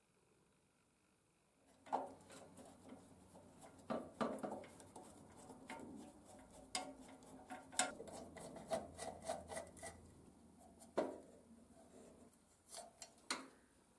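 A screwdriver scraping and prying at the rusty steel housing and scrolled iron bracket of an old street lamp, with sharp metal clicks and knocks on a steel work table. It starts about two seconds in, after near silence.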